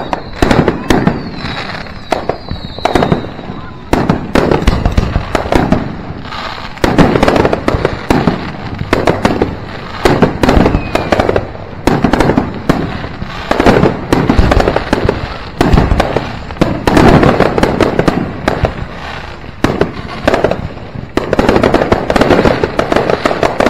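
Aerial fireworks going off in rapid succession: sharp bangs and crackling bursts from shells launching and exploding, in loud clusters throughout. A couple of high whistling glides sound in the first few seconds.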